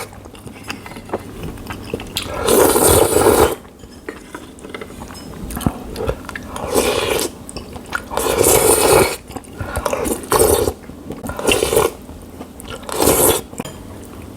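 Close-miked slurping of spicy seafood jjamppong ramen noodles and broth: a string of about seven separate slurps, each lasting up to a second or so.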